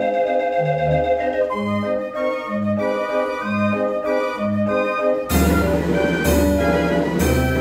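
Dutch street organ (draaiorgel) playing a tune: pipe melody over low bass notes alternating in an oom-pah pattern. About five seconds in the music turns louder and fuller, with a heavy beat.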